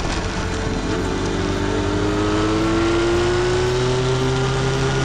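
Motorcycle engine running on the move, its pitch rising slowly as the bike gathers speed, over a steady rush of wind and road noise.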